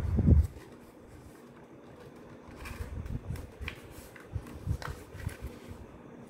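A sheet of craft paper being folded and creased by hand: soft rustles and scattered crinkles as the pleats are pressed flat, after a dull low thump right at the start.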